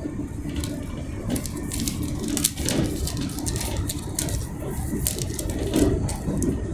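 Cabin noise of a Class 385 electric multiple unit on the move: a steady low rumble with frequent light clicks and rattles over it.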